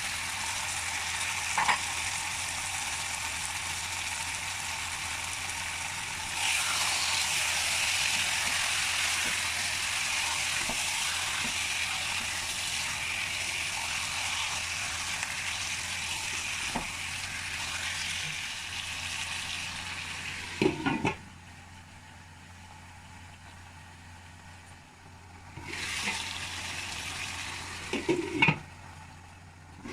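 Food sizzling in hot oil in a pan, a steady hiss that grows louder about six seconds in, with a few light clicks. About two-thirds of the way through come two sharp knocks and the sizzle falls much quieter, swells briefly, and two more knocks come near the end.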